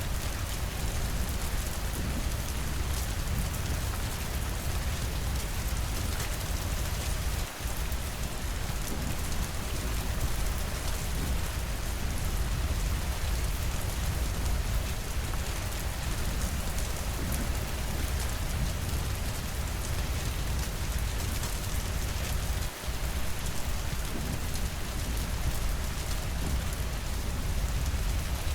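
Steady rainfall with dense, fine raindrop patter over a deep low rumble. The level dips briefly twice, about a quarter of the way in and again about three quarters in.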